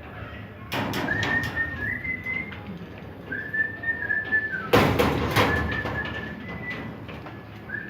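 A high, clear whistled tone, held about a second at a time and stepping slightly in pitch, repeated four times. Knocks and clatter come between them, the loudest a thump about five seconds in.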